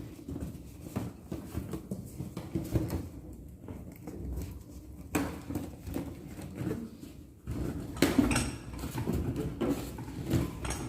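Balloons and plastic balloon-stand parts being handled: irregular clicks, knocks and rubbing, with a louder cluster of knocks about eight seconds in.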